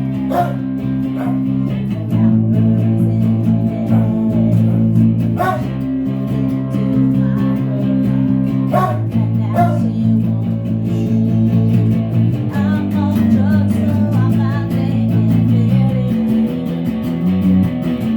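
Guitar-band rehearsal music: guitars playing sustained chords that change about every two seconds, with a wavering melody line over them in the second half.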